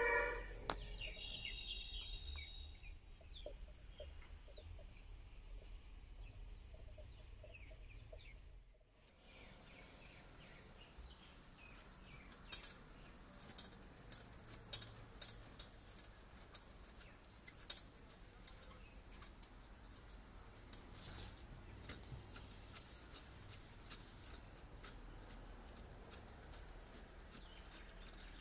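Faint outdoor background. A horn-like tone cuts off just after the start, and a bird calls in the first few seconds. Later come scattered light clicks and taps as the rusty metal frame and cap of a kerosene lamp are handled.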